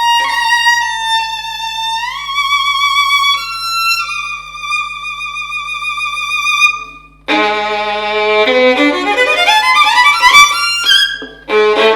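Solo violin, a maker's copy of the Guarneri del Gesù 'Cannone', played with the bow: long high notes with vibrato joined by slow slides, then, after a brief break about seven seconds in, lower chords and a quick rising run up the strings.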